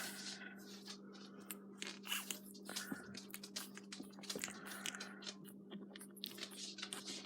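Faint, rapid, irregular smacking and chewing sounds from pug puppies' mouths, over a steady low hum.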